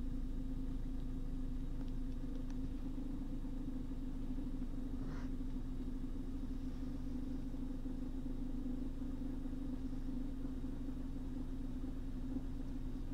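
Car engine idling, heard from inside the cabin as a steady low hum. A faint brief squeak sounds about five seconds in.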